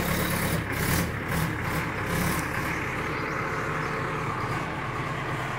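JCB 3DX backhoe loader's diesel engine running steadily while the backhoe works a pile of soil, with a few short knocks or scrapes in the first couple of seconds.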